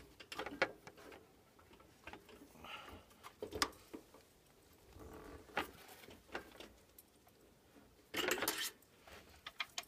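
Light metallic clicks and taps of a small wrench and Allen driver working on the tight grub screw that holds the blower fan to the motor shaft of an Atwood RV furnace. A short rattle of metal tools comes about eight seconds in.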